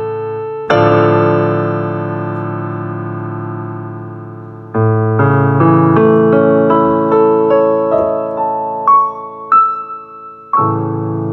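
Piano playing a slow theme. A chord is struck and left to ring out. Then a line of single notes climbs step by step, two higher notes follow, and a final chord comes near the end.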